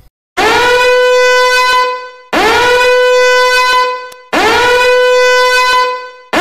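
Alarm horn sound effect: a loud blaring tone that swoops up in pitch and then holds steady for about a second and a half, repeated every two seconds. Three full blasts, with a fourth starting at the very end.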